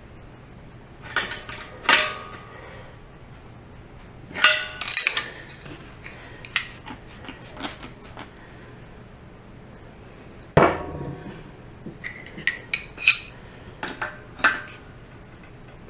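Hand tools clanking and clinking against the metal fittings of a Craftsman air compressor while a stubborn fitting is worked loose and refitted. There are a few loud ringing clanks with lighter clicks and taps between them.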